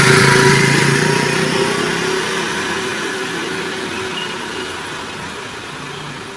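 Small motor scooter pulling away, its light engine hum fading steadily as it rides off into the distance.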